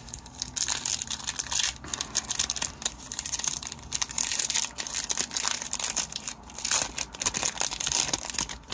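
Plastic wrapper of an Upper Deck hockey card pack crinkling and tearing as the pack is opened, a dense crackle that stops near the end.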